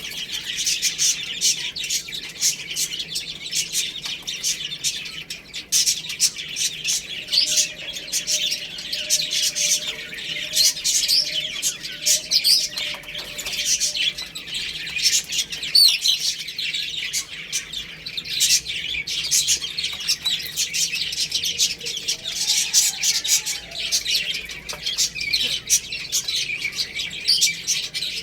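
Many baby chicks peeping together, a dense, continuous chorus of high-pitched overlapping chirps.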